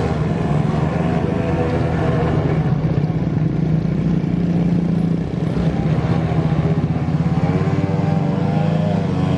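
Grass-cutter engine driving a radio-controlled boat, running steadily at high speed. Its note dips briefly about five seconds in, then picks up again.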